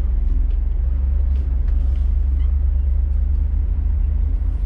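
Scania S500 truck's diesel engine running at low speed, a steady deep rumble heard from inside the cab, with a few faint ticks.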